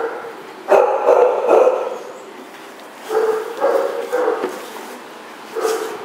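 Dogs barking and yipping in short bursts while they wrestle in play. The loudest run comes about a second in, several shorter barks follow a little past halfway, and one more comes near the end.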